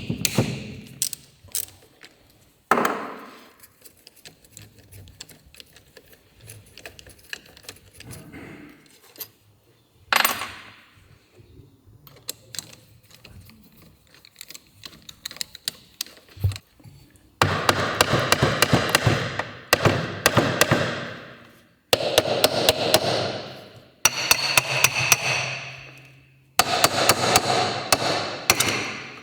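Metal tools and engine parts being worked on a bench: scattered sharp clinks and a couple of single knocks, then four bursts of rapid metallic clattering and scraping, each a few seconds long, in the last third.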